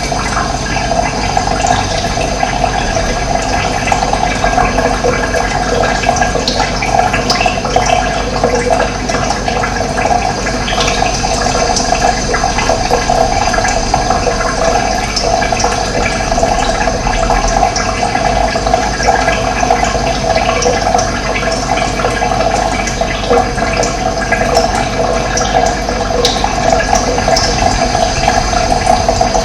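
Running water, a steady rushing flow.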